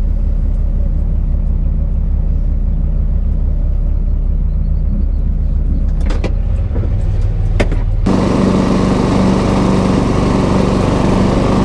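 Lawn mower engine running steadily. About eight seconds in, the sound cuts abruptly to a louder, rougher engine sound.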